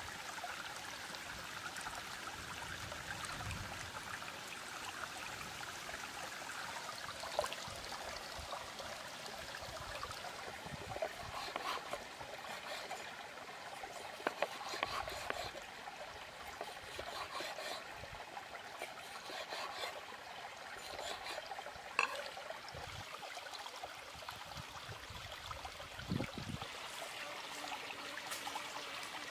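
Stream water running steadily over rocks, with a few sharp knocks and clicks scattered through it.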